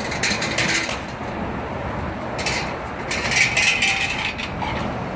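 City street traffic under a steel elevated bridge deck, with bursts of metallic clattering and rattling near the start and again through the middle.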